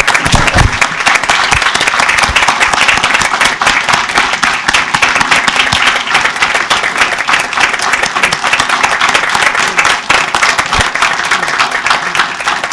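A room full of people applauding, with many hands clapping at once in a dense, steady ovation.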